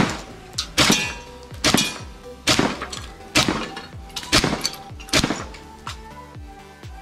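Tokyo Marui SAIGA-12K gas blowback airsoft shotgun firing semi-auto, about eight sharp shots roughly one a second, with the disc targets breaking as they are hit. Background music plays underneath.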